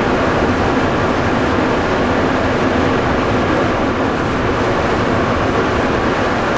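Rubber-tyred Montreal metro train running through a tunnel, heard from inside the driver's cab: a steady, loud rumble and hiss of wheels and motors with no let-up.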